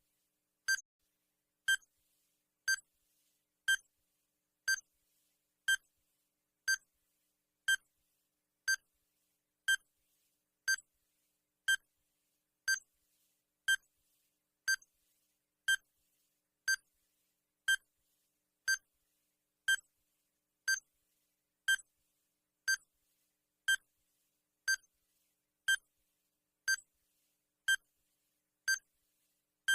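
Countdown timer sound effect: a short electronic beep once every second, each one a clear high tone, with silence between.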